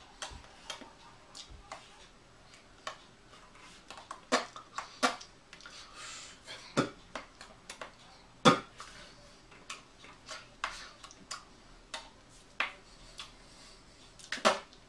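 Irregular clicks, taps and slaps of hands striking each other and the fingers tapping the palm while signing in sign language. The loudest slap comes about eight and a half seconds in, with another sharp one near the end.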